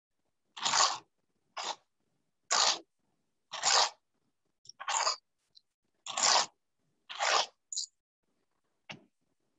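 Pencil being twisted in a small handheld sharpener: rough scraping strokes about once a second, eight or so in a row, then a small click near the end.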